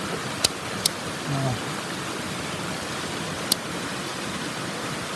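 Clear mountain stream rushing steadily, with three sharp clicks, two close together about half a second in and one a little after three seconds.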